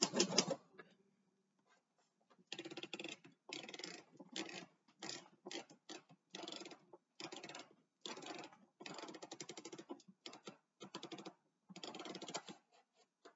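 Manual typewriter being typed on, which the owner takes for an Olympia SM De Luxe: fast runs of key strikes in bursts like words, with short pauses between them, starting about two and a half seconds in after a single sharper knock at the start.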